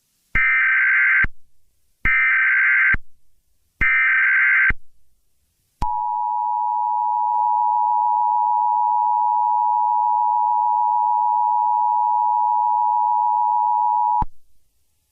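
Emergency Alert System tones: three short bursts of SAME digital header data, then, about six seconds in, the two-tone attention signal, a steady dual-pitch tone held for about eight seconds that cuts off abruptly. The tones announce that an emergency alert message follows.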